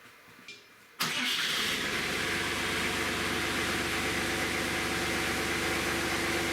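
A backhoe's engine starting about a second in, catching at once and running steadily with an even hum.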